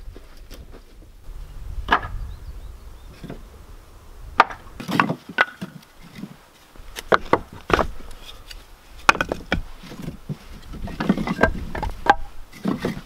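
Pieces of split wood knocking against each other and clattering in a wheelbarrow as they are handled by hand: irregular sharp wooden knocks, some in quick runs.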